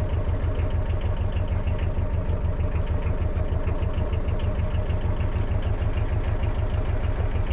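Narrowboat engine running steadily at low cruising speed, with an even, low rhythmic beat.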